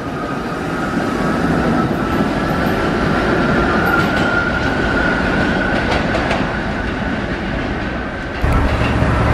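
R68-series New York City Subway train pulling out and moving away, with wheel and rail noise and a motor whine that rises a little in pitch as it picks up speed. About a second before the end the sound cuts to a louder, deeper steady hum.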